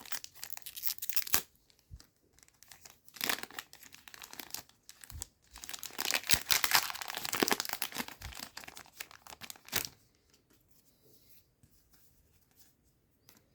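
Foil booster pack of trading cards being crinkled and torn open by hand, in several rustling bursts, loudest about halfway through, then going quiet for the last few seconds.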